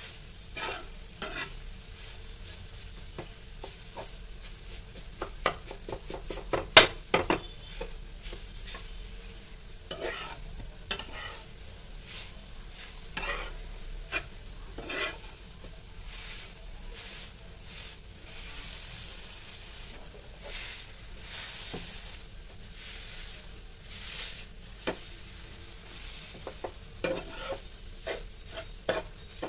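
Steel spatula scraping, turning and pressing a ground urad dal filling around a flat metal pan, with a steady light sizzle from the filling roasting on the flame. The scrapes and taps come at irregular intervals, the loudest about seven seconds in.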